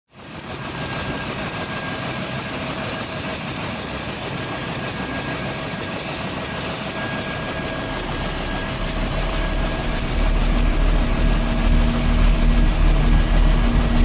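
Helicopter running with its rotor turning: a steady turbine whine over dense rotor noise, growing louder with a deeper rumble from about eight seconds in.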